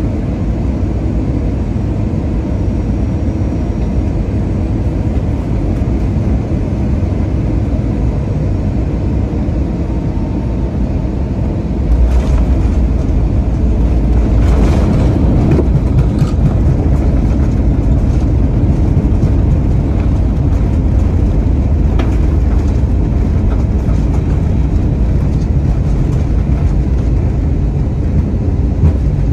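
Airbus A320 cabin noise on the last seconds of approach, then touchdown about twelve seconds in: the rumble steps up and the cabin rattles as the wheels meet the runway. After that comes a steady, louder low rumble as the airliner rolls down the runway.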